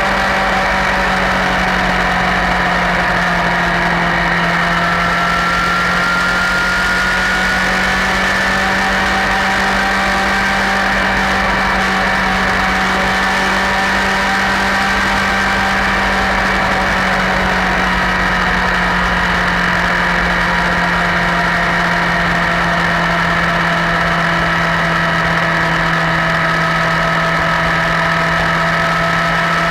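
Honda CBR1000RR SC57's inline-four engine running steadily at an even, held speed, with no revving.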